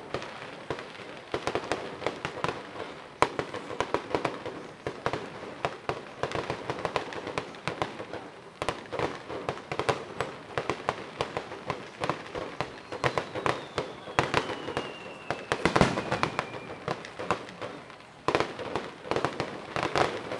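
Fireworks going off in rapid succession: a dense run of bangs and crackles, with a whistle falling in pitch from about thirteen seconds in and the loudest bang about sixteen seconds in.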